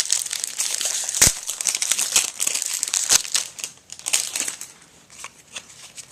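Baseball card pack wrapper crinkling as it is torn open and crumpled, with a couple of sharp clicks; it tails off to quieter, scattered crackles about four and a half seconds in.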